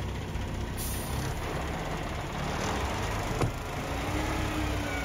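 Dump truck's diesel engine running steadily with the throttle held up, with a single sharp knock about three and a half seconds in.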